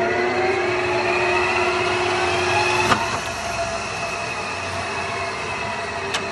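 Kingston HL2500 engine lathe running under power, its headstock gearing and spindle giving a steady mechanical whine of several pitches that rises over the first three seconds and then holds level. A sharp click about three seconds in, after which the sound eases slightly, and another click near the end.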